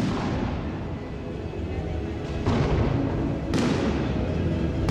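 Aerial fireworks shells bursting with sharp echoing booms: one at the start, two more about two and a half and three and a half seconds in, and one at the very end.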